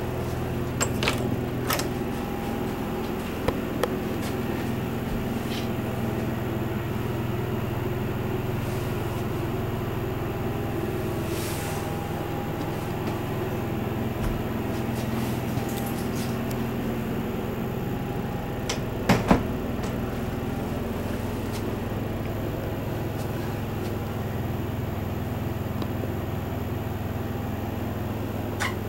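Steady low mechanical hum inside a motorhome, with a few sharp clicks near the start, a quick double knock about two-thirds of the way through and another click near the end, from its interior doors and cabinets being handled.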